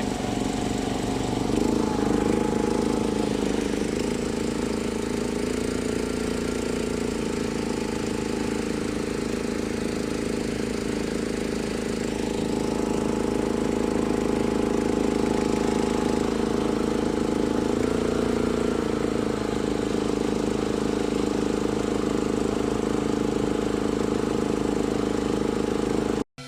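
Small fishing boat's engine running steadily under way, with a constant, even drone.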